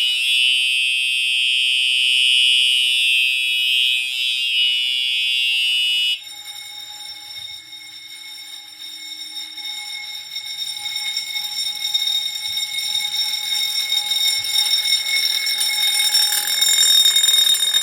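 A Simplex TrueAlert remote horn and a Wheelock 6-inch fire alarm bell sounding together on continuous. The horn cuts off about six seconds in. The bell's fast-vibrating striker keeps the gong ringing steadily, growing louder until it stops at the very end.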